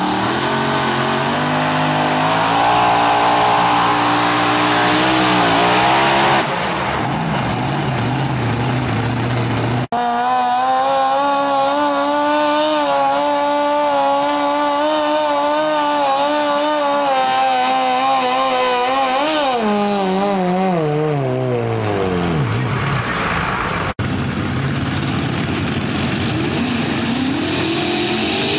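Mini modified pulling tractor engines running hard at high revs under load while pulling the sled, in three separate runs. In the middle run the engine note holds steady, then sinks away as the engine winds down; the last run's note rises near the end.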